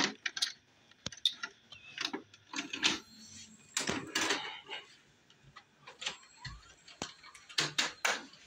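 Handling noise: scattered clicks, knocks and brief rustles at irregular intervals as objects are handled and moved about.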